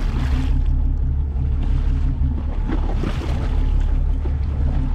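A boat's engine running steadily at sea, under wind rumble on the microphone and the wash of the sea.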